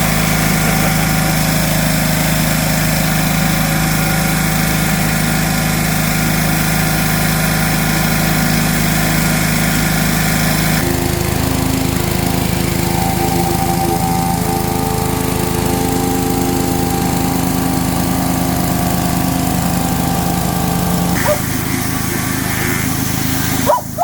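Pressure washer's engine running steadily under load, with the hiss of water spray from a rotary surface cleaner on concrete. Its tone shifts about eleven seconds in and again near the end, then the sound drops off abruptly.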